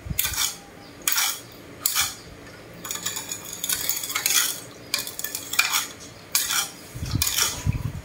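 Metal spoon stirring and scraping around a ceramic bowl of dipping sauce in short, uneven strokes, mixing it. There are a couple of dull knocks near the end.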